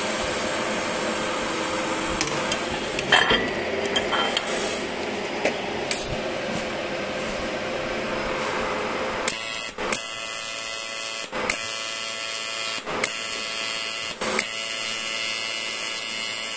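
Weiro SuperTIG 315EX inverter TIG welder running under test in AC mode, giving a steady electric buzz. About nine seconds in, the buzz turns into a more even hum that cuts out briefly about every second and a half.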